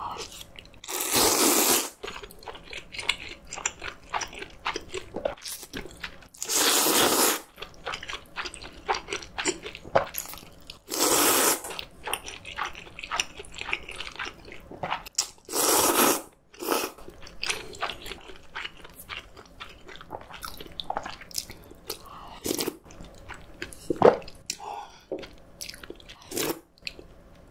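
Close-up eating sounds of a person slurping noodles from cold soybean-broth noodle soup: four long slurps of about a second each, with soft chewing and lip smacks between them.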